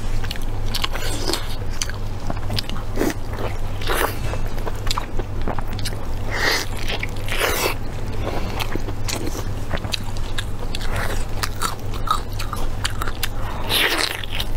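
Close-miked eating sounds: a person biting into and chewing sticky glazed braised meat, with wet smacking and quick moist clicks throughout.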